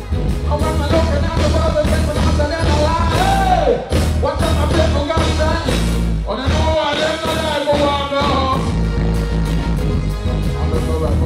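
Live dancehall performance: a male vocalist singing into a microphone over a live band with heavy bass and drums. The bass drops out briefly about four seconds in and again for a couple of seconds past the middle, leaving the voice more exposed.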